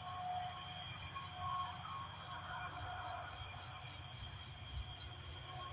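Crickets chirring in a steady night chorus, a continuous high-pitched trill. Fainter tones come and go lower down, over a low rumble.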